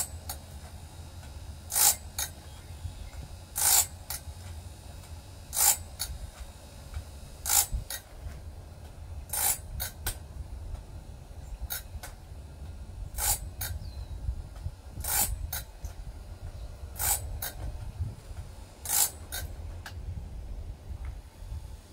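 Wood-Mizer BMS250 bandsaw blade sharpener running: a steady motor hum with a short grinding hiss about every two seconds as the wheel comes down on each tooth in turn.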